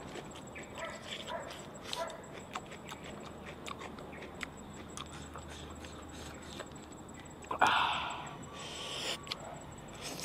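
Close-up eating sounds: mouth smacking and chewing clicks. About seven and a half seconds in comes a loud sucking hiss from the mouth, and a softer one follows a second later.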